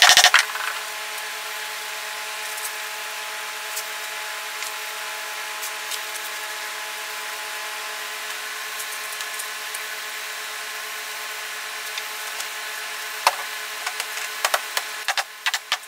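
A power tool or shop machine running steadily at an unchanging pitch, with a few sharp knocks near the end.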